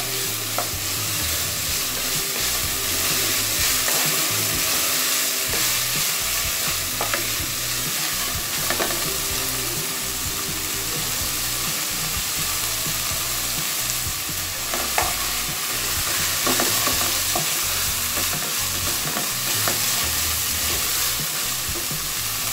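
Chicken pieces and chopped yardlong beans sizzling steadily in hot oil in a wok over high heat, stirred with a wooden spatula. A few short scrapes or knocks of the spatula against the pan are heard now and then.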